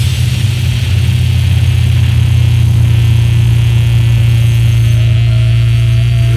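Loud, steady low drone from a rock band's amplified instruments, with no drums or beat. A faint higher tone joins about five seconds in.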